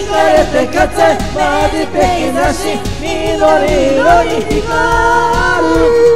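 Upbeat Japanese pop karaoke backing track, with amateur voices singing along through microphones.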